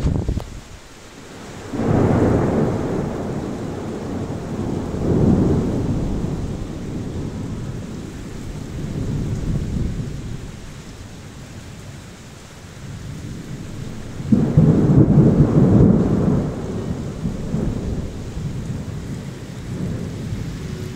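Heavy rain falling steadily, with rolling thunder. A rumble breaks in about two seconds in and swells again a few seconds later, and a louder rumble breaks in about fourteen seconds in and fades over several seconds.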